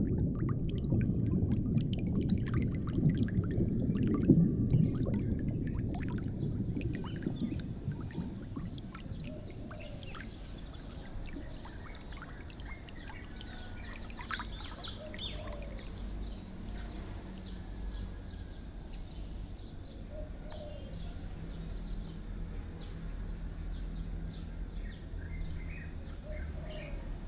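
Rushing, pouring water that fades over the first several seconds into a quiet ambience with scattered bird calls and a faint low steady hum.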